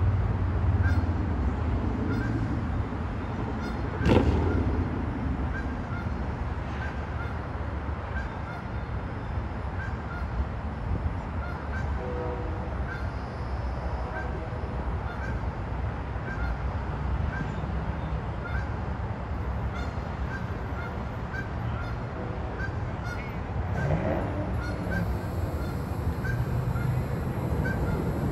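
A short nasal honk-like call repeats a little faster than once a second over a steady low rumble, with a vehicle passing about four seconds in and another near the end.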